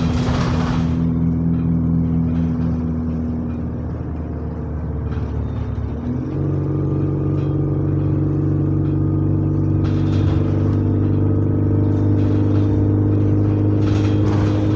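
Bus engine running steadily, heard from inside the bus. About six seconds in its pitch steps up and holds higher as the engine picks up revs, with a short burst of hissing noise at the very start.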